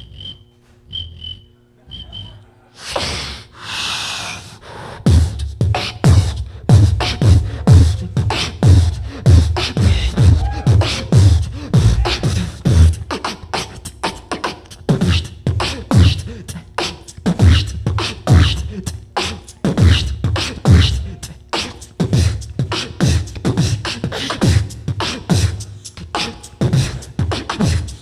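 Solo beatboxing into a handheld microphone through a PA: a fast, dense rhythm of deep bass kicks that drop in pitch, with snare and hi-hat clicks and hisses. It starts about five seconds in, after three short high beeps over a low held tone from a logo jingle.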